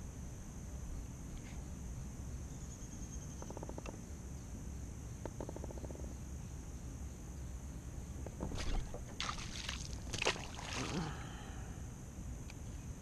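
Open-water ambience from a kayak: a steady high insect drone over a low rumble. There are two short runs of rapid clicking in the first half. About two-thirds of the way in comes a cluster of louder sharp knocks and splashes on the water.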